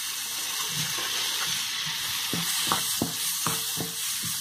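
Chopped tomatoes sizzling in hot oil and spice masala in a non-stick kadai, as a wooden spatula stirs through them with repeated scraping strokes against the pan.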